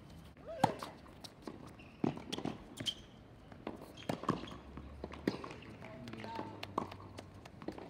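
Tennis rally: sharp pops of the ball struck by rackets and bouncing on the hard court, a second or two apart, the loudest about half a second in, with players' footsteps on the court between them.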